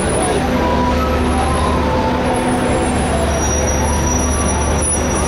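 Busy city street traffic: a steady, loud mix of engine and road noise with a strong low hum.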